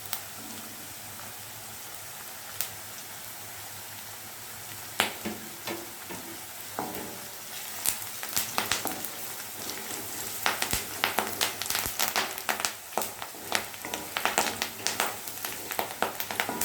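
Onions, garlic paste, turmeric and just-added curry leaves sizzling in hot oil in a pan, a steady frying hiss. From about eight seconds in, many sharp clicks and scrapes of a spatula stirring against the pan.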